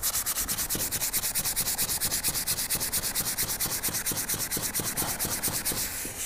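Abrasive sanding sponge scrubbed back and forth along a kettlebell's painted metal handle in rapid, even strokes, scouring the clear coat off down to bare metal. The scrubbing stops abruptly at the end.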